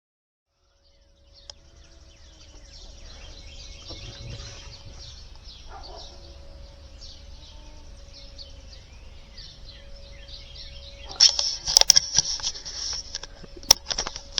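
Tornado warning siren sounding a faint, steady tone under birds chirping. About eleven seconds in, louder rustling and clicking noises start.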